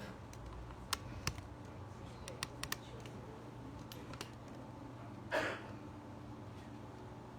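Quiet room tone with scattered faint sharp clicks and one brief rustle about five seconds in.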